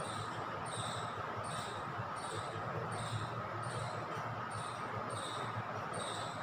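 Steady background hum with a faint, regular tick about twice a second and a thin steady tone.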